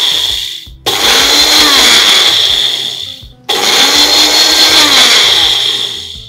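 Small electric mixer grinder blitzing a little salt in its jar, the motor and gritty salt rattle running in short pulses. One run winds down about half a second in, then two more start suddenly and fade out after about two and a half seconds each.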